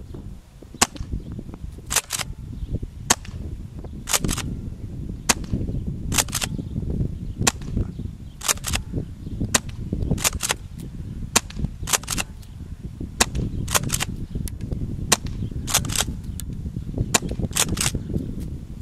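Tokyo Marui M870 gas airsoft shotgun fired over and over, each sharp pop followed by the double clack of the pump being racked, about a shot every two seconds. Wind rumbles on the microphone underneath.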